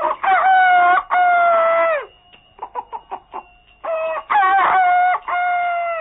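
Rooster crowing twice, cock-a-doodle-doo, each crow a short note rising into a long held one, with quick short sounds between the two crows.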